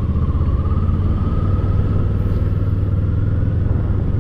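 Kawasaki Eliminator 450's parallel-twin engine running steadily at low speed in traffic, with no revving, heard from the rider's seat.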